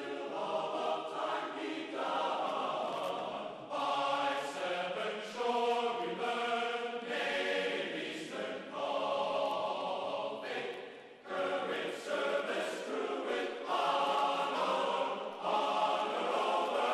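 Background music of a choir singing in long held phrases, with short breaks between them.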